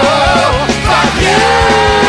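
Music: a song with long, held sung notes that waver, over a steady drum beat; one held note ends about half a second in and another begins a little past one second.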